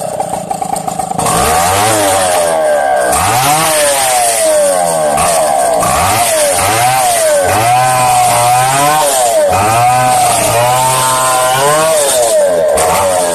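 Chainsaw cutting into a tree trunk, its engine pitch swooping up and down again and again as the chain bites and eases, giving a wavering, wailing whine. The uploader presents the sound as the tree chanting praise.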